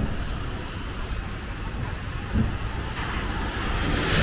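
Road traffic passing on a rain-wet city street. A vehicle's engine hum and tyre hiss swell near the end as it draws close.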